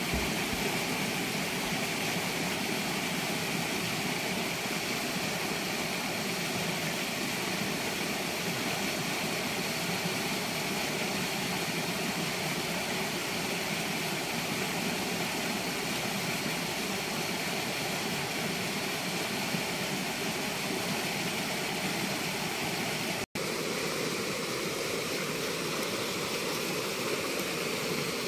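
Steady rush of river water pouring over a low weir and through rapids, cutting out for an instant about 23 seconds in.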